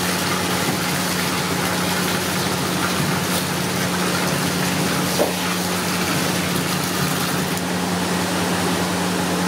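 A steady, unchanging rushing noise over a constant low hum, like a machine running.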